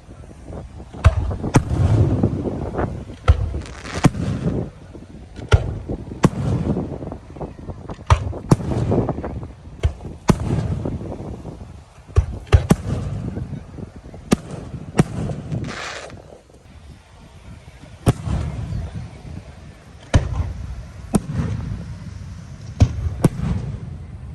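Fireworks going off: many sharp cracks and bangs at uneven intervals, several close together at times, with low booming rumble between them.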